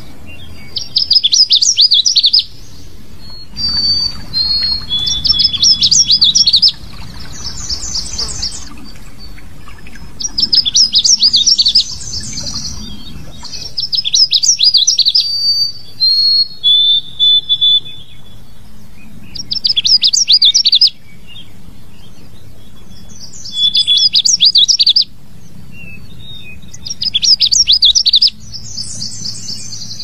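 Canada warbler singing its rapid, jumbled, high-pitched warble in bursts of about a second and a half, repeated every few seconds, with short whistled notes in between.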